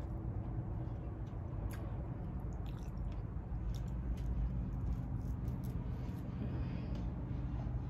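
Close-miked eating: wet, squishy chewing and small mouth clicks of someone eating soft squash and shrimp in coconut-milk sauce, over a steady low hum.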